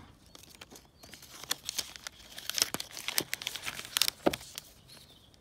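Clear plastic film being peeled off a new phone's retail box and crinkling in the hands: a run of crackles with a few sharper snaps, busiest in the middle.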